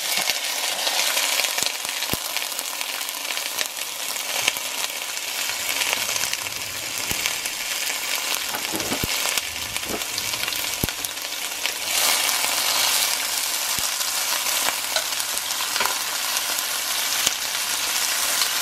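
Sliced bell peppers and onions sizzling in hot oil in a stainless steel pot: a steady frying hiss, with a few sharp clicks.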